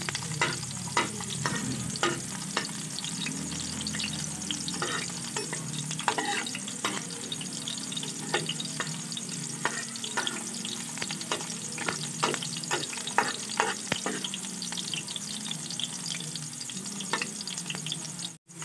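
Chopped garlic and onion sizzling steadily in hot oil in a metal wok, with a metal spatula scraping and clicking against the pan as they are stirred. They are being sautéed until they turn red.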